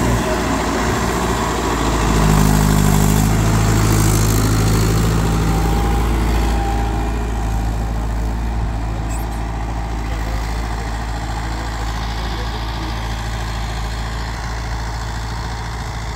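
Mahindra 575 XP Plus tractor's four-cylinder diesel engine running steadily at about 1800 rpm in first high while pulling a cultivator, holding its revs under the load without dropping. It fades slowly as the tractor moves away.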